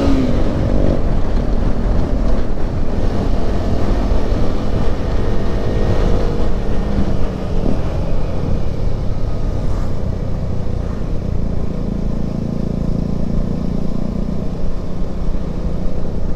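KTM 390 single-cylinder motorcycle ridden at road speed, its engine note mixed with heavy wind rush on the onboard microphone. The engine pitch drops as the bike slows.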